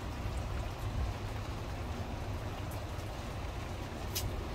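Steady rain falling, an even hiss with a low rumble underneath and a faint tick or two of drops.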